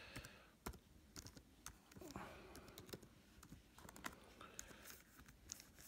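Faint, irregular key clicks of a computer keyboard as a password is typed in.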